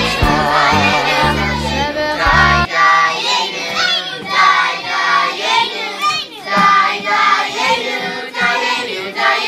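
A group of children singing together in unison, at first over an instrumental accompaniment with a steady bass line. The accompaniment stops under three seconds in and the children carry on singing unaccompanied.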